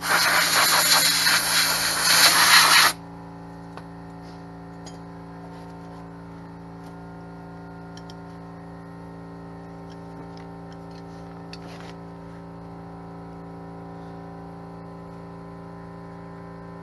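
A spray can hissing loudly for about three seconds, then cutting off abruptly. After it, a steady, much quieter hum with several fixed tones continues.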